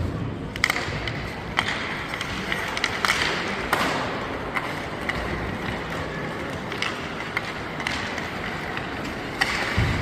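Ice hockey play: skate blades scraping the ice under steady rink noise, with several sharp clacks of sticks and puck.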